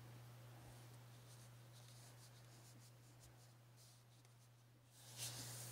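Faint soft rustling and scratching of polyester fiberfill and crocheted yarn as fingers push and pack stuffing down into a crocheted amigurumi body, under a steady low electrical hum. The rustling grows louder about five seconds in.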